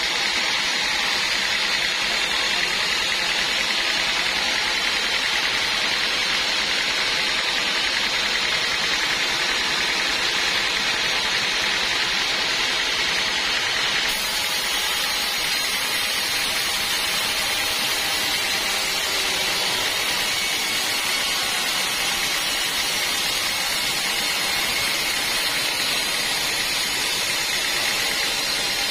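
Band sawmill running with a steady, even machine noise.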